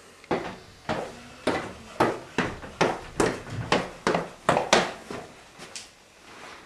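Footsteps, about two hard steps a second, fading out near the end.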